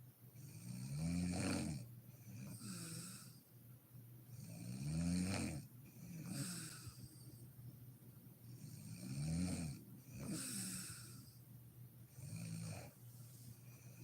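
A woman snoring in her sleep in a steady rhythm: a loud, low snore roughly every four seconds, each followed by a softer, airy breath out.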